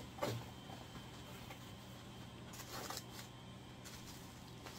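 Faint rustling of a plastic-wrapped package as it is picked up and handled: one short rustle just after the start and a couple more around three seconds in, over a low steady hum.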